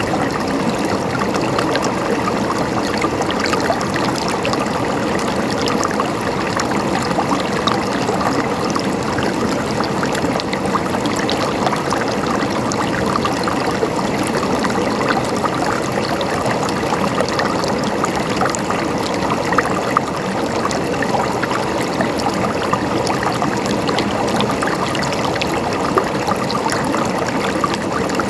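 Flowing stream water, babbling and gurgling steadily, with many small splashes and trickles throughout.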